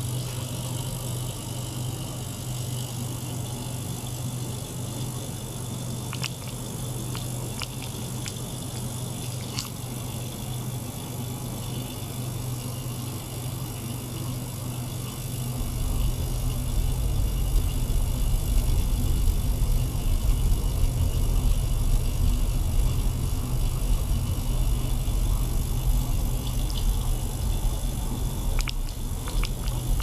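Small circulation pump and ultrasonic cleaner running together: a steady motor hum with water circulating through plastic tubing, plus a few faint ticks. About halfway through, a deeper rumble comes in and the sound gets louder.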